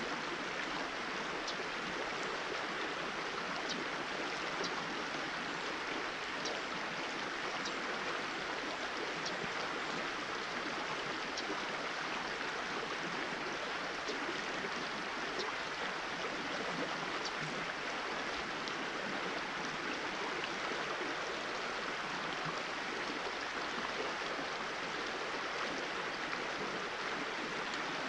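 Small trout stream flowing steadily over shallow riffles: a constant rushing of water, with faint small ticks now and then.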